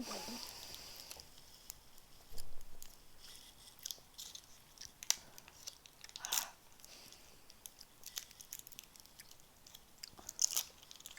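Someone chewing a chewy sour apple sweet close to the microphone: irregular small mouth clicks and smacks, with a few louder noises among them.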